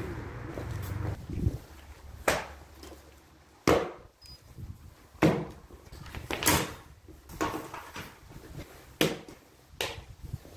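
Tools being set down one at a time on a stack of OSB boards: about eight sharp knocks and clunks, roughly a second apart.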